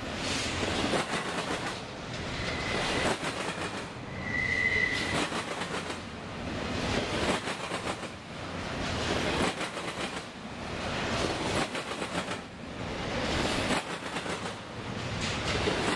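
Double-stack intermodal freight train passing close by: the steady rumble and rattle of loaded well cars, swelling and fading every couple of seconds, with wheel clicks. A brief high wheel squeal comes twice, the stronger about four seconds in.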